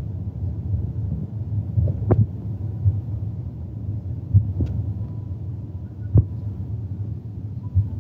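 Low steady rumble inside a car cabin, with a few faint clicks scattered through it.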